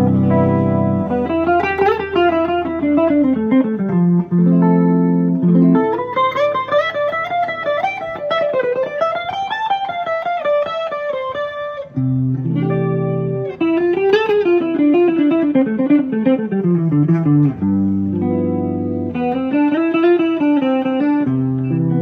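1970 Gibson ES-340TDW semi-hollow electric guitar played through an amp, improvising: held chords alternating with quick single-note runs that climb and fall.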